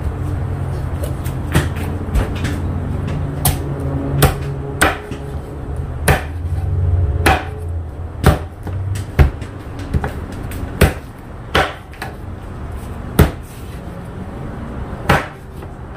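Knife chopping through a native chicken: sharp knocks about once a second at an uneven pace, over a low rumble that fades about halfway.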